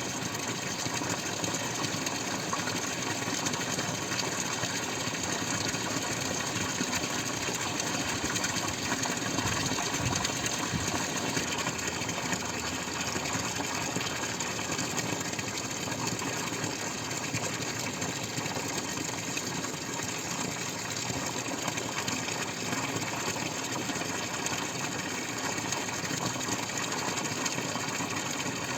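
Water running and splashing steadily, a dense continuous patter of many drops with no breaks.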